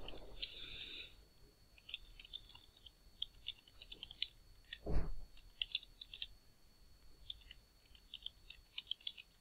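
Computer keyboard typing in quick runs of short key clicks, with one louder thump about five seconds in.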